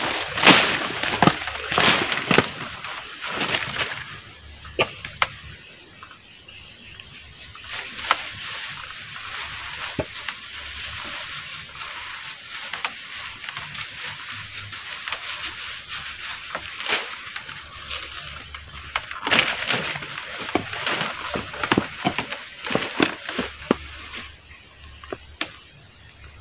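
Irregular rustling and crackling of dry banana leaves and the plastic bag covering a banana bunch as they are handled from a bamboo ladder, densest in the first few seconds and again near the end.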